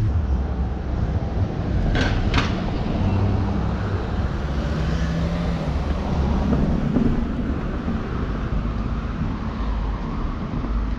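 City street noise: a steady low rumble of traffic, with two sharp clicks close together about two seconds in.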